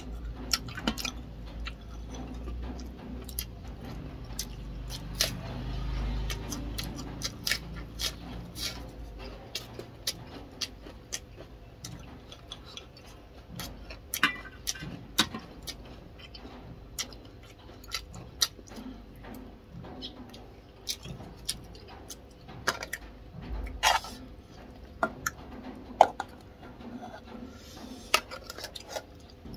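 Close-up eating sounds: chewing and mouth noises with many short sharp clicks and taps of chopsticks against bowls and dishes, scattered unevenly, one standing out near the end.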